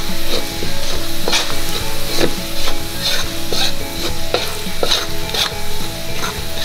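A slotted metal spatula scrapes and stirs in an aluminium wok, in strokes roughly two a second, over the sizzle of ground garlic and candlenut frying in oil on a low flame.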